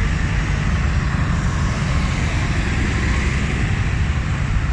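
Diesel engines of modern farm tractors running as they drive past one after another in a procession: a steady, loud, low engine sound.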